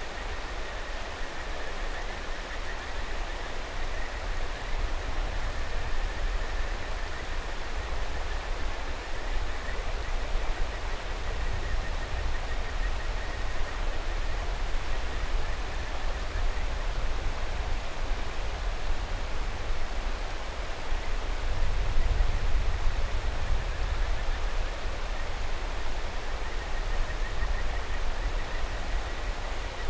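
Mountain river rushing steadily, with kajika frogs (Buergeria buergeri) giving a faint high rippling trill over the water noise, clearest near the start and again near the end.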